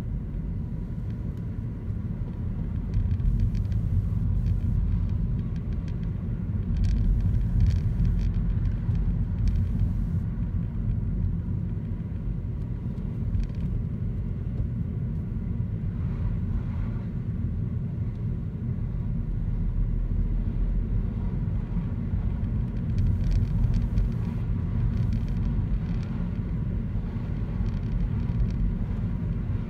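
Car driving along a town street, heard from inside the cabin: a steady low rumble of engine and tyres on the road, with a few faint knocks now and then.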